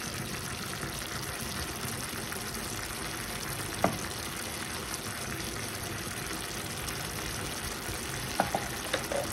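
Chicken, vegetables and red wine simmering over a low gas flame in a stainless steel frying pan, a steady soft sizzle and bubbling. A light clink comes about four seconds in and a few more near the end.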